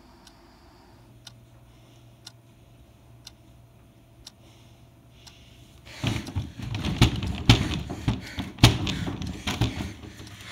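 Faint, regular ticking about once a second over a low hum, then about six seconds in a loud, irregular run of thumps and knocks.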